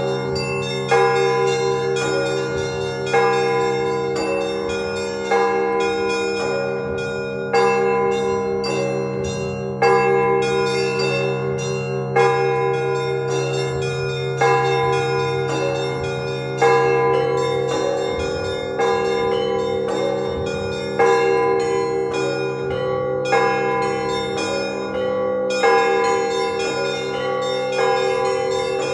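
Russian Orthodox church bells rung together for the Sunday service. A heavy bell is struck about every two seconds over a quick, continuous pattern of smaller bells, and the tones ring on and overlap.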